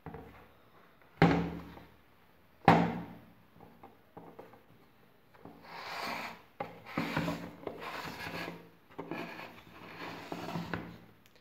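Plastic casing of a small thermal receipt printer handled on a desk: two sharp knocks near the start, then a run of rubbing, scraping sounds as it is slid and turned on the desk surface.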